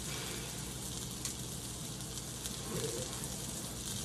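Sausage patties sizzling in a frying pan: a steady hiss with a few faint crackles.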